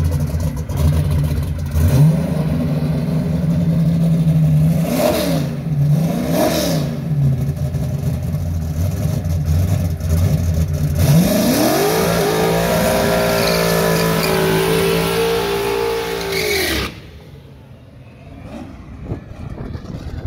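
Big-tire drag-racing Camaro's engine idling with a lumpy note, stepping up to a faster idle about two seconds in and blipped twice. About eleven seconds in it climbs quickly to high revs, holds there steadily for about five seconds, and then cuts off suddenly, leaving only faint distant engine sound.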